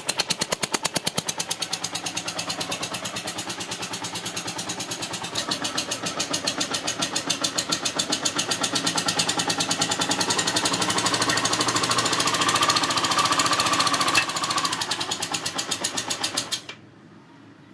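Yamaha TDM 850 (4TX) parallel-twin engine running with an even, rhythmic pulsing that grows somewhat louder midway, then switched off, the sound cutting out suddenly near the end.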